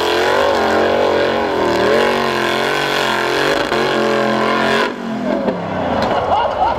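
Formula Offroad hill-climb buggy's engine revving hard, its pitch swinging up and down again and again as the throttle is worked. About five seconds in the sound cuts abruptly to a quieter, noisier stretch.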